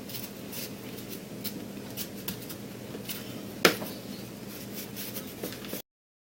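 Maya dust (resin-rich fatwood shavings) being packed by hand into a cardboard toilet-paper roll: light scratchy rustling and small clicks, with one sharper click about three and a half seconds in. The sound cuts off suddenly near the end.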